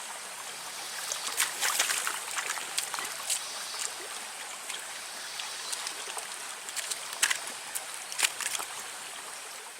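Running stream water trickling, with scattered small splashes.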